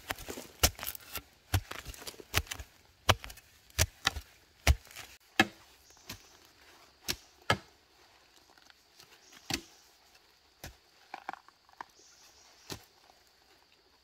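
A long-handled digging tool chopping into forest soil to dig out a bamboo shoot. It strikes sharply about twice a second for the first five seconds or so, then more slowly and at uneven intervals.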